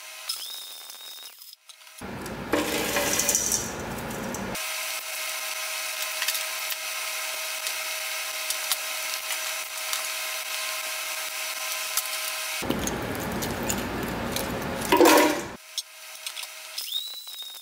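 Bateerun tabletop blender motor running at speed, with chunks of laptop motherboard rattling and grinding against the blades and jar. The grinding gets rougher and louder twice, and between those stretches it runs steadier. A high steady whine sounds briefly near the start and comes in again near the end.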